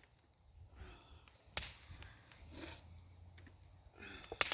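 Brush-pile fire burning with a few sharp pops and cracks, one about a second and a half in and two or three in quick succession near the end.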